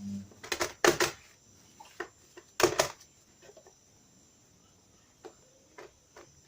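Kitchen handling noises: a few sharp knocks and clicks of utensils or containers being set down, the loudest about a second in and again near the three-second mark, then a few faint taps. A low steady hum cuts off right at the start.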